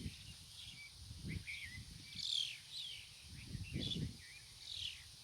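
Birds chirping in short, scattered calls over gusts of wind rumbling on the microphone.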